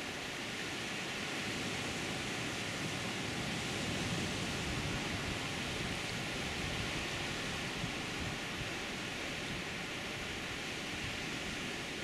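Sea surf breaking on rocks and washing into a rocky cove: a steady rush that swells a little a few seconds in.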